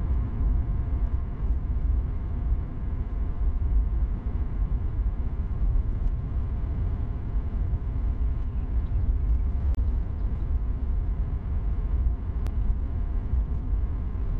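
Honda Fit e:HEV cruising at a steady speed: a steady low road-and-tyre rumble with no change in pitch, and a few faint ticks in the second half.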